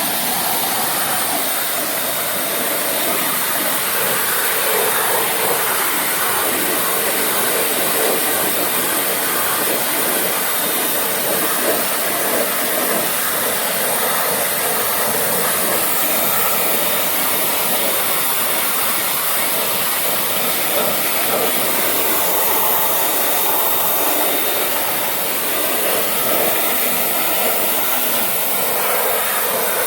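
Small electric pressure washer running, its water jet spraying steadily onto a car's rear drum brake parts to wash off caked dirt.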